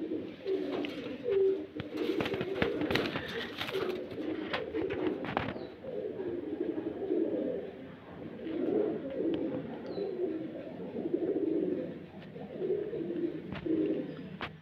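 Domestic pigeons cooing repeatedly, low and throaty calls that come and go all through. Sharp clicks and taps come through the cooing in the first few seconds.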